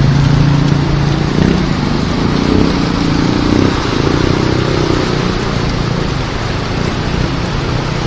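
Heavy rain falling steadily, with a motor vehicle's engine running through it that fades away about halfway through.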